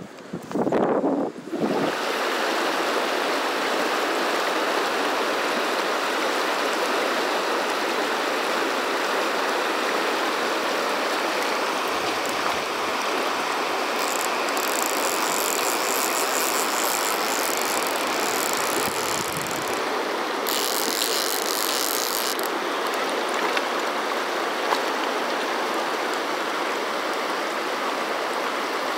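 Fast, shallow river water rushing steadily over a riffle, heard close to the water, with a hissier, brighter stretch about halfway through.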